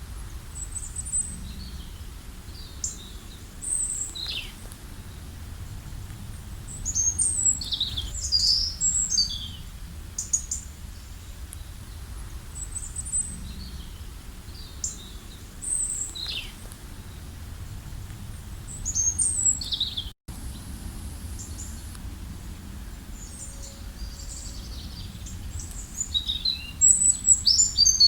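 Wild songbirds chirping and trilling in short, high-pitched phrases, scattered throughout, over a faint steady low rumble.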